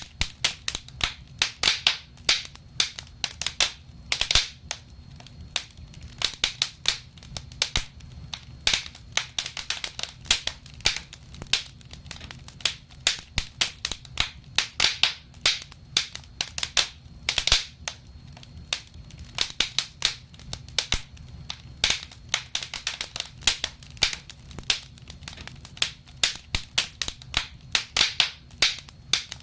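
Wood fire in a fireplace crackling: irregular sharp pops and snaps, several a second, over a low steady rumble.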